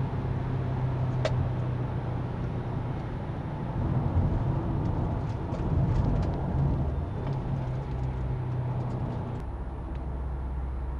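Subaru WRX's turbocharged flat-four engine running at cruise with tyre and road noise, heard inside the cabin; the engine note drops lower about nine seconds in.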